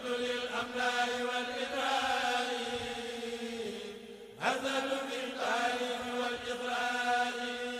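Religious chanting of a khassida, a Mouride devotional poem: a voice sings two long, drawn-out phrases, the second beginning about four and a half seconds in with a rising glide.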